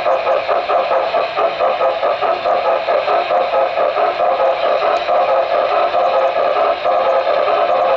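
HO-scale model steam train running along the track, heard from a camera riding on it: steady, close running noise of the wheels and mechanism on the rails.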